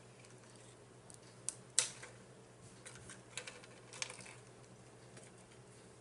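Crisp crunching and crackling of crunchy food being chewed close to the microphone: a scatter of sharp clicks for about three seconds, the loudest about two seconds in.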